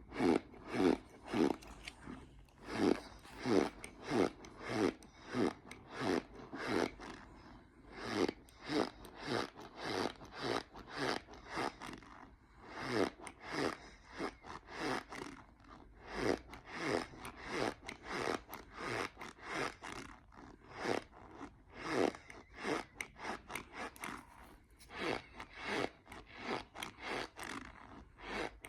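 Packed cornstarch squeaking as it is compressed and chewed: a steady run of short squeaks, about two a second, each gliding down in pitch.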